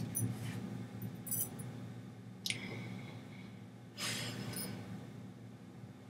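Quiet room tone: a steady low hum with a few faint clicks, a short squeak about two and a half seconds in, and a brief rustle of moving hands and clothing about four seconds in.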